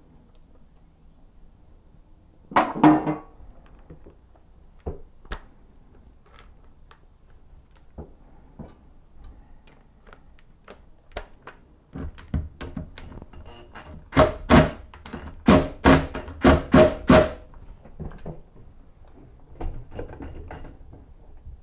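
Metal hand tools clattering in a sink about three seconds in, then scattered light clicks of handling. From about fourteen seconds there is a quick run of about eight sharp metallic knocks over three seconds, as a socket is worked onto the faucet's valve stem.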